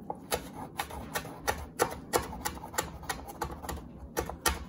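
A kitchen knife chopping fresh mint leaves on a wooden chopping board: a quick, regular run of sharp knocks, about three a second, as the blade strikes the board.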